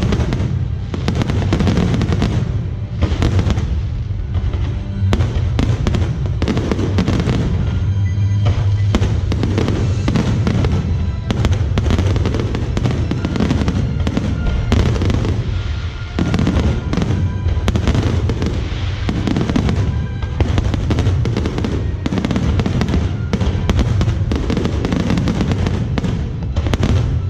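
Fireworks display going off continuously, a dense run of rapid bangs and crackles over a low rumble.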